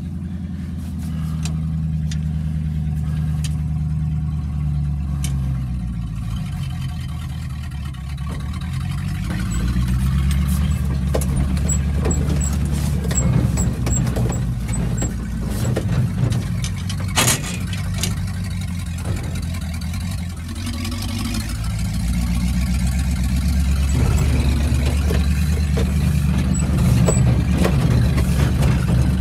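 A truck engine running, its speed rising and falling, heard from inside the cab of a 1953 International R-180 pickup under tow over rough ground. The old cab rattles and clanks, with one sharp knock a little past halfway.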